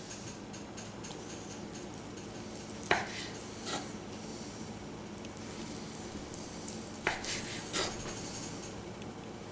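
A long slicing knife cutting thin slices from cooked corned beef on a wooden cutting board. The blade knocks sharply against the board four times, in two pairs about three and seven seconds in, over a steady low hum.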